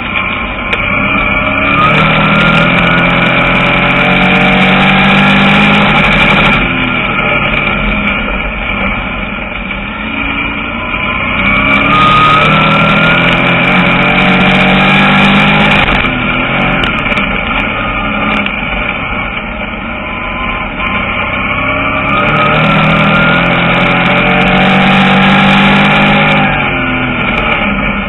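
A dirt-track Crate Sportsman race car's engine, heard from inside the cockpit, under racing power. It revs up in three long rising sweeps, about ten seconds apart and each the loudest part, and eases off in between.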